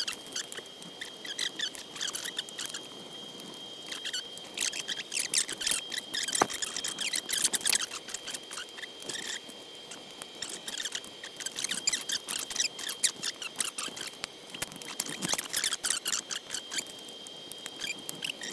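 Thin aluminium sheet-metal air box being handled and fitted around an aircraft engine's cylinders: irregular light scrapes, taps and crinkles of the metal, over a faint steady high whine.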